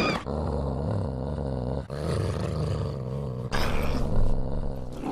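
A large dog growling low and menacingly, in three long growls.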